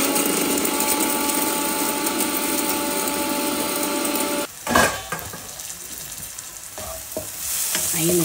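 Electric mixer grinder running steadily while it grinds whole spices into garam masala powder, then cutting off suddenly about four and a half seconds in. A knock follows, and near the end chopped onions sizzle in a pan as a wooden spatula stirs them.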